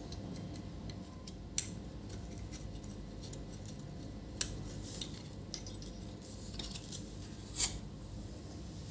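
Light, sharp clicks and taps of small parts and tools being handled on a workbench while a monitor's circuit board is fitted, three louder ones a few seconds apart.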